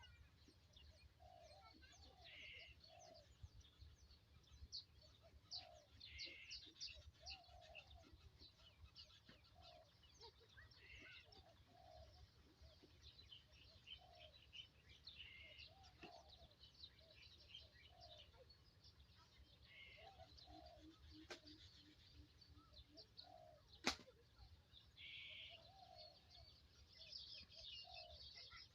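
Birds chirping faintly, many short high chirps, with a lower short call repeating every second or two and one sharp click late on.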